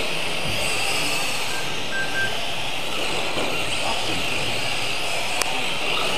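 Several electric mini RC cars racing together, their motors making a steady high-pitched whine. A single sharp click comes about five and a half seconds in.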